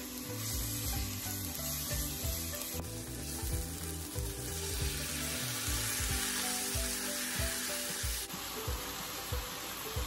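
Onions, ginger-garlic paste and lentils sizzling in oil in a nonstick frying pan as they are stirred with a spatula. The sizzle gets louder about three seconds in and eases back about eight seconds in.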